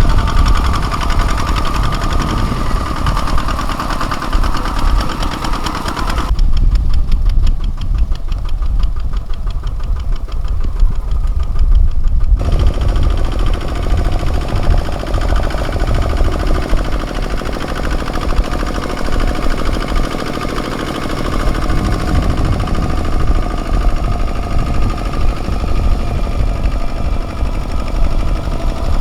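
Kubota ZT155 mini tractor's diesel engine running steadily while ploughing, knocking like a diesel. From about six seconds in, the sound turns duller for about six seconds, then returns to its fuller tone.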